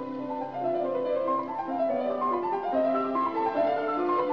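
Background piano music: a flowing melody of held notes over chords.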